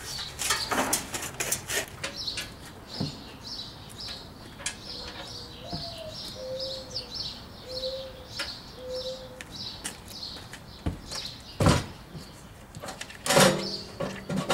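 Small birds chirping over and over in short high notes, while the grill's steel cart frame is handled. There are knocks and clanks of metal in the first couple of seconds, a sharp knock a little before the end and a louder metallic clatter near the end.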